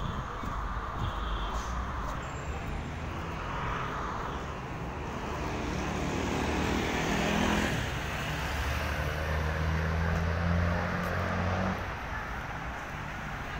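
Road traffic noise, with a motor vehicle's engine running close by from about six seconds in; it grows louder, then stops shortly before the end.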